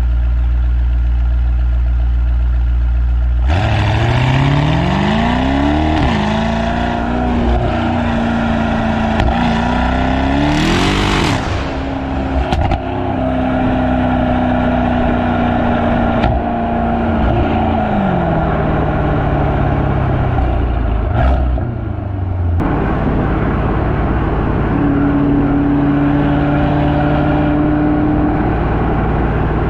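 Mercedes-AMG E63 S twin-turbo 4.0 V8 (M177) with upgraded downpipes and the exhaust flaps fully open. It runs at a deep steady idle for a few seconds, then the revs climb suddenly, rise and fall, hold steady for several seconds, and drop back to a low, steady run.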